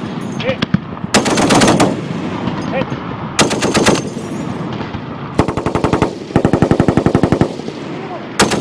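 M2 .50-calibre heavy machine gun firing a series of short bursts of rapid, evenly spaced shots, a burst every second or two.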